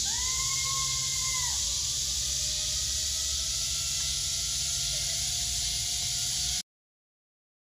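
Steady high hiss with a faint whine rising slowly in pitch, typical of a zipline trolley speeding up along its cable. A long held call sounds near the start.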